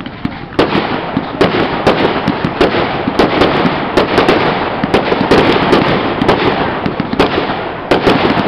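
Fireworks display: a rapid barrage of sharp bangs and pops from aerial bursts, several a second, over a continuous rumble. The barrage picks up about half a second in.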